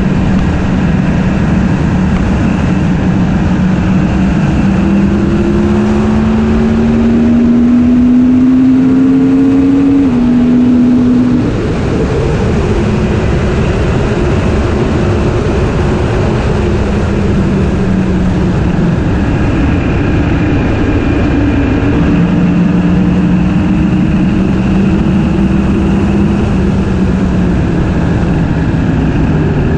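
Yamaha R1M crossplane inline-four engine running steadily under way. Its pitch climbs slowly for about ten seconds, drops suddenly as a gear changes, then falls back and holds steady.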